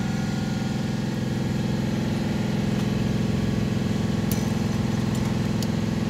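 Toyota FJ Cruiser's 4.0-litre V6 idling steadily. It is running with fuel now reaching the engine on a truck that had cranked without starting, a sign the fault lies in the fuel pump module or its connector.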